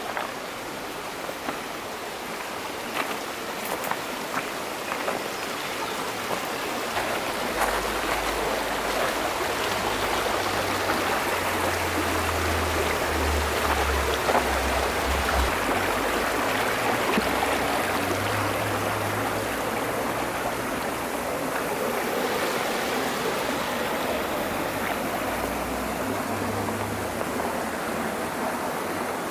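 Rocky mountain stream rushing over stones, a steady noise that swells slightly after the first few seconds. A few light clicks come near the start.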